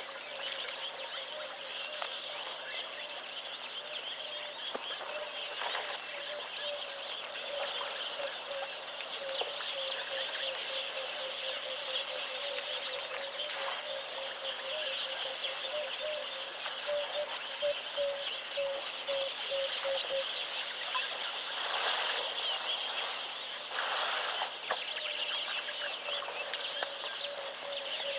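Dense chorus of wild birds at a waterhole: many overlapping chirps and calls, with a lower call repeated in a steady pulse of a few notes a second through the middle stretch. A few short rushes of noise stand out.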